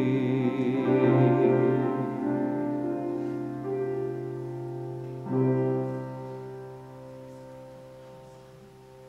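Closing bars of a hymn's accompaniment: piano chords under a held, wavering note that dies away in the first two seconds. A final chord is struck about five seconds in and left to ring and fade.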